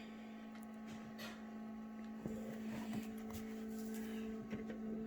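A steady electrical hum, with a few faint clicks and knocks from handling.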